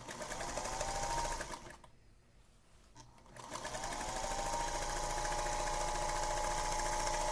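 Electric sewing machine stitching a straight seam through quilt border strips: a short run of about a second and a half, a pause, then a longer steady run, the motor whine rising in pitch as each run starts.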